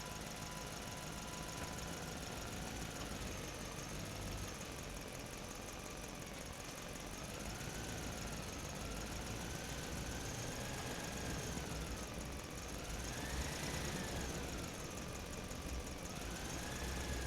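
Small electric motor of a toy truck whirring, its pitch rising and falling as its speed changes.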